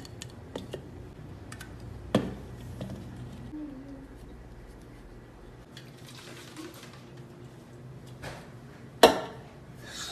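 Small aluminium soda cans handled and knocked against each other and a tabletop: a few scattered sharp clinks and taps, the loudest near the end.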